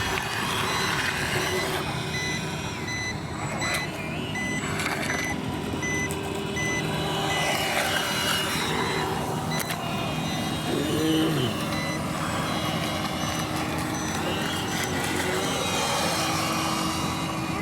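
An electronic beeper sounds in steady, evenly spaced beeps, stops about seven seconds in and starts again near the end, over continuous outdoor noise.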